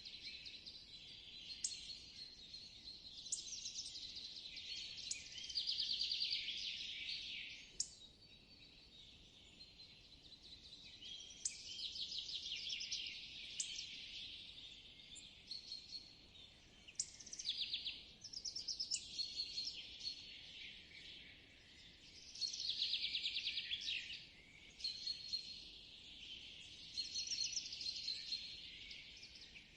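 Spring forest ambience of several songbirds singing and calling. Rapid trills stand out every few seconds, with short high chirps and whistles in between.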